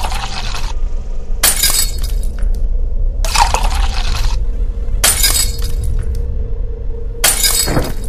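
Glass shattering in five crashes, one about every one and a half to two seconds, over a low steady drone of background music.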